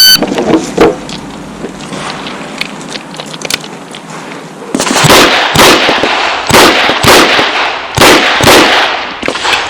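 A shot-timer beep starts the string. About five seconds later comes a string of about six loud, sharp gunshots from a Chiappa Rhino .38 Special revolver, spaced roughly half a second to a second apart, with a few fainter pops before them.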